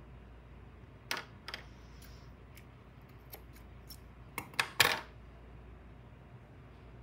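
A few sharp clicks and knocks of small hard craft supplies handled on a tabletop: a couple about a second in, then a louder quick run between four and five seconds in.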